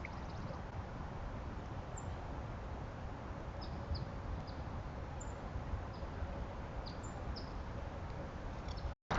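Outdoor ambience: a steady low rumble and hiss, with a scattering of faint, short high bird chirps.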